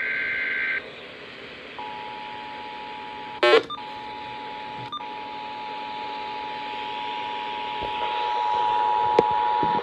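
Emergency Alert System activation over a radio or TV broadcast. The last warbling, screechy burst of the digital SAME header ends within the first second. After a moment of hiss comes the two-tone EAS attention signal, held steady for about eight seconds with one sharp click partway through. It announces an emergency alert, here a flash flood warning.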